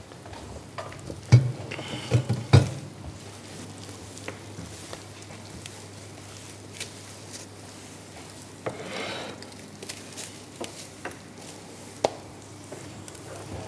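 Breaded chicken escalopes sizzling as they fry in oil in a pan, a steady hiss that swells briefly about nine seconds in. A few loud knocks in the first three seconds and a sharp click near the end.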